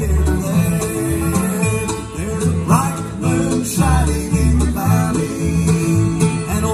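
Live bluegrass band playing: fiddle, five-string banjo, upright bass, acoustic guitar and mandolin together, with the bass notes pulsing steadily underneath.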